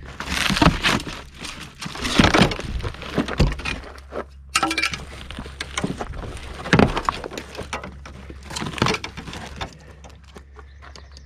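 Repeated crunching, cracking and clattering bursts, as of old RV wall material being broken and pulled away from the frame, over a steady low hum.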